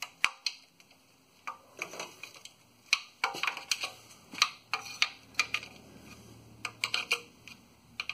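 Hand ratchet wrench clicking in short, irregular bursts as the transmission pan bolts are checked for tightness.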